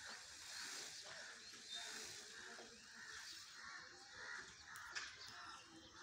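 Faint outdoor ambience with small birds chirping in the distance, and a single sharp click about five seconds in.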